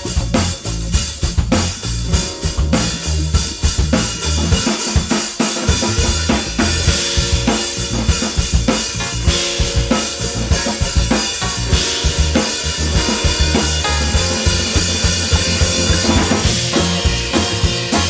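Acoustic string band with drums playing an instrumental passage without vocals. A drum kit keeps a steady beat under upright bass and acoustic strings: guitar, mandolin, fiddle and banjo.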